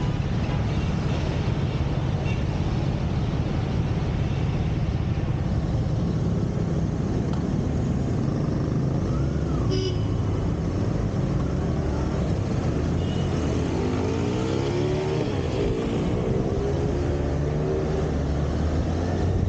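Kawasaki ZX-6R inline-four engine running at low speed in traffic. About fourteen seconds in, the revs climb as the bike accelerates away.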